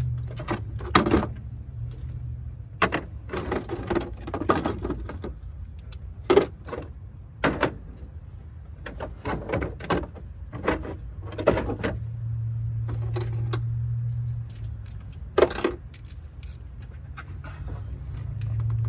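Scattered metallic clinks and knocks of hand tools and parts being handled during engine-bay work, over a steady low hum.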